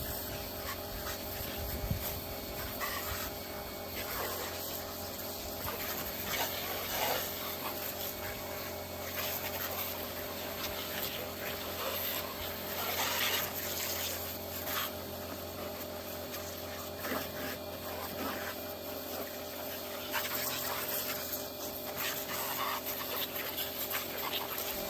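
Pressure washer converted to run on a Milwaukee M18 battery, its motor and pump running with a steady hum while the water spray hisses in irregular surges.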